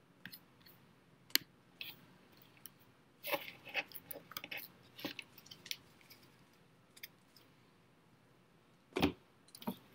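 Scattered small clicks and crinkly plastic-like rustling of things being handled on a desk, with a denser patch of crinkling a few seconds in and sharper knocks early on and near the end.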